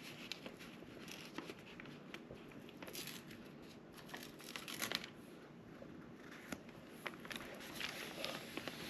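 Crinkling and rustling of an adhesive-backed covering sheet and its backing being peeled and handled, in scattered short bursts with a few light clicks.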